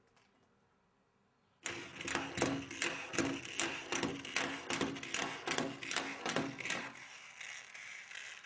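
A small machine starts abruptly about a second and a half in and runs with a rhythmic clatter, about three strokes a second, over a steady hum. It drops to a quieter, even running noise near the end.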